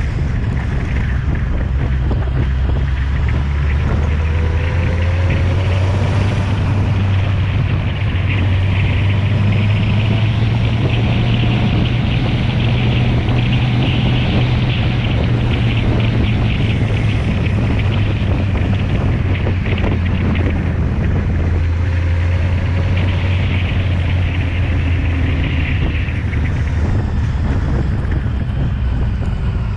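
Kawasaki Z750's inline-four engine running steadily at riding speed, its pitch climbing a little over the first several seconds and easing off in the last few, with wind rushing over the microphone.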